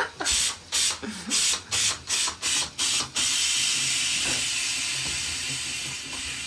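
Water at a stainless-steel kitchen sink: about three short splashy bursts a second for roughly three seconds, then the tap running in a steady hiss as hands are rinsed under it.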